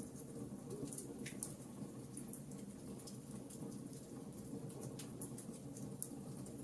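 Campfire crackling: irregular sharp pops and snaps over a steady low rumble, with one louder pop about six seconds in.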